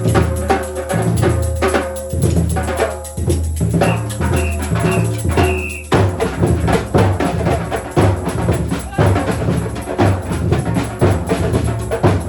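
Batucada percussion ensemble playing: deep surdo bass drums with snares and other hand percussion in a Brazilian samba groove. About four seconds in, four high notes sound, three short and a longer one, and at about six seconds the drumming changes into a denser, busier pattern.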